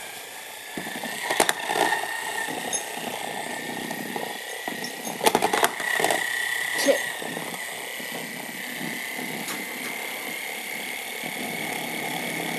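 Light-up toy spinning top spinning on carpet, giving a steady high whirring tone, with a few sharp knocks about a second and a half in and again around five seconds in.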